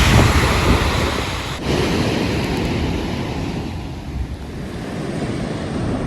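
Sea waves washing on the shore, with wind buffeting the microphone; the wind rumble is strongest at the start and eases off, and the sound changes abruptly about a second and a half in.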